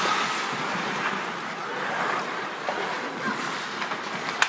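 Ice hockey arena noise heard from the stands: a steady wash of skates on the ice and chatter from the crowd, with a few light knocks and one sharp crack near the end.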